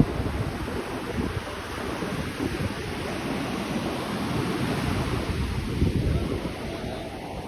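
Wind buffeting the microphone over the wash of surf, a rough rumble that rises and falls.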